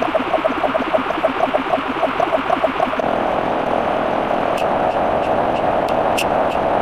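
Sound effect: a fast pulsing tone, about nine pulses a second, over a hiss, which gives way about three seconds in to a steady rushing noise with scattered sharp clicks.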